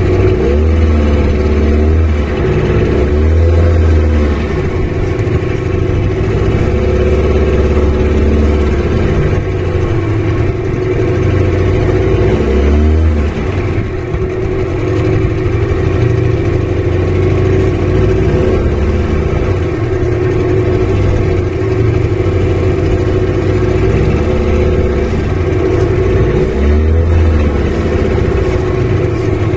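Small fishing boat's motor running steadily, its pitch rising and falling back a few times.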